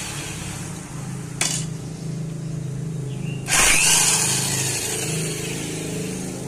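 DCA APB20C corded electric impact wrench running on engine-block bolts to loosen them, rather loud. There is a sharp click about a second and a half in, and a louder burst of hammering starts about halfway through, then slowly eases off.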